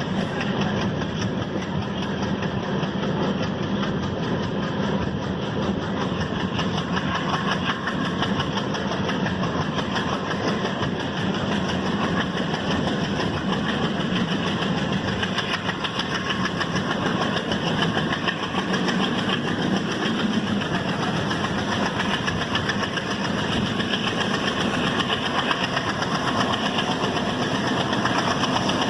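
Alco WDG-3A diesel locomotive's turbocharged 16-cylinder engine running steadily as it hauls the train, with its turbocharger whistling over the deep engine chug.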